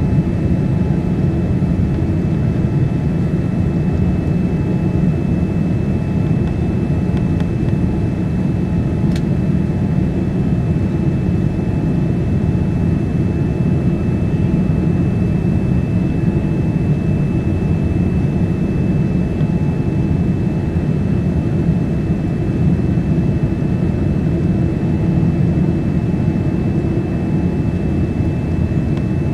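Steady cabin roar inside a Boeing 787-9 on final approach, from airflow and its Rolls-Royce Trent 1000 engines, with a faint steady high whine over it. A single short click about a third of the way through.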